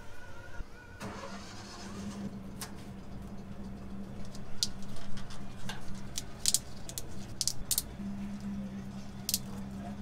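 Scattered short clicks and rattles of wire and corrugated plastic split-loom tubing being handled and threaded, over a steady low hum.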